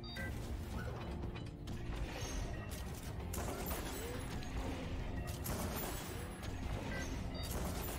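Online slot machine game's bonus-round sound effects: steady mechanical rattling of the reels respinning, with short tones as new multiplier symbols land, over the game's soundtrack.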